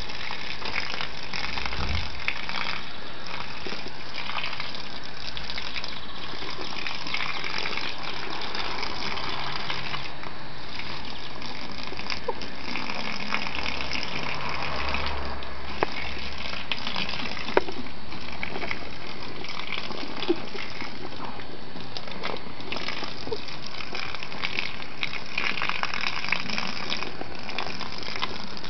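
Steady stream of water from a garden hose nozzle splashing onto grass and soil, with a few light knocks.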